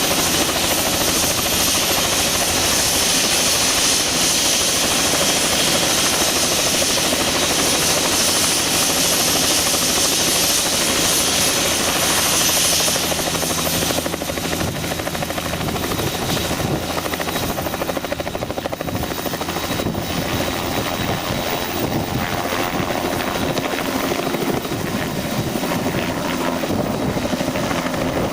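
Bell 206LT TwinRanger helicopter running, its twin turboshaft engines and rotor making a steady sound. A high turbine whine is strong at first, then falls away suddenly a little under halfway through, leaving the rotor and engine sound slightly quieter.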